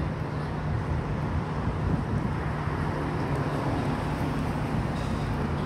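Steady city street traffic noise: cars and vans running along the avenue, with a continuous low hum underneath.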